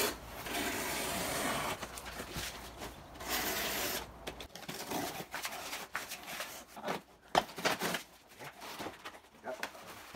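Large cardboard shipping box being handled and opened. A steady rubbing along the taped edges gives way to irregular scrapes and sharp knocks as the box is moved and the lid lifted.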